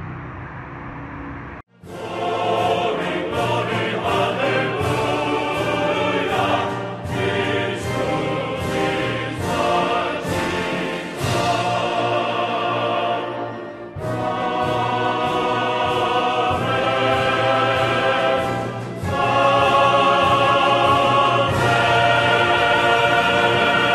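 Choral music: a choir singing long held notes. It starts about two seconds in after a brief drop to silence and pauses briefly about midway.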